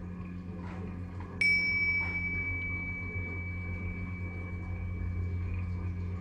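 A piece of metal percussion is struck once about a second and a half in. It rings on as a clear high tone that fades slowly over several seconds, above a steady low hum.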